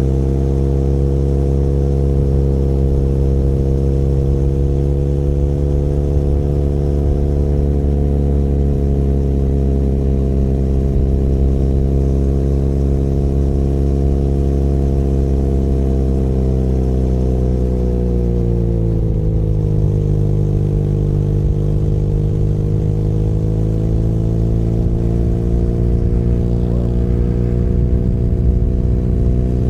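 Benelli Leoncino 500 Trail's parallel-twin engine running under way, its pitch rising and falling gently with the throttle. About two-thirds of the way through the engine note drops, then climbs slowly again.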